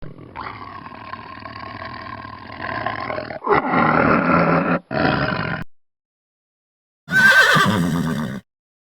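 Animal calls from two clips: a drawn-out call that grows louder about halfway through and stops suddenly, then after a gap of silence a shorter, loud call lasting just over a second.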